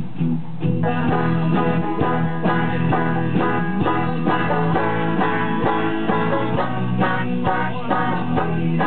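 Banjo picked in an instrumental break: a quick run of plucked notes over a steady low accompaniment.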